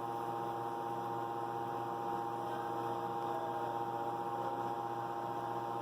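Steady electrical hum made of several constant tones, with no other sound standing out.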